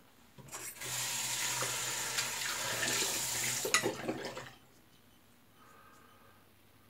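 Bathroom tap running into a sink for about three seconds, then shut off, with a few splashes and knocks as it stops.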